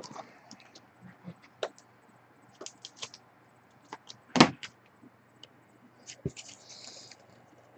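Scattered light clicks and taps of trading cards and their packaging being handled, one louder tap about four and a half seconds in and a short rustle near the end.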